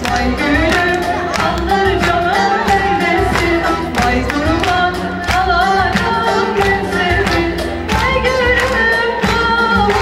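A woman singing a Turkish folk song (türkü) live with a small band, a long-necked string instrument and bass guitar underneath, the melody moving in ornamented glides over an even beat.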